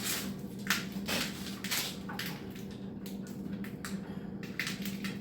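Hand ratcheting pipe threader being worked back off a freshly threaded gas pipe, with its ratchet set to reverse: irregular clicks and short rasping strokes, over a steady low hum.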